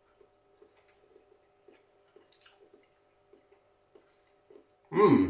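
Faint, soft chewing of a mouthful of cooked carrot, small wet mouth sounds two or three times a second over a steady faint hum. Near the end comes a short, loud voiced sound.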